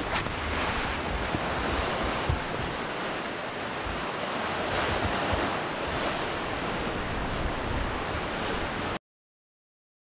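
Sea waves washing on a shore: a steady rushing that slowly swells and eases, cutting off abruptly near the end.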